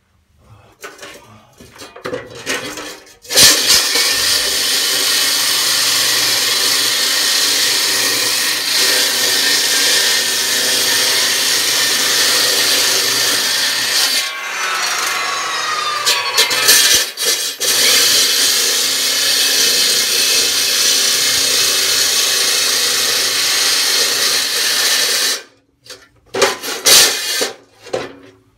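Electric power saw cutting into a concrete floor slab, a loud steady grinding that starts about three seconds in. Midway it winds down briefly and starts again, and it cuts off suddenly near the end, followed by a few knocks.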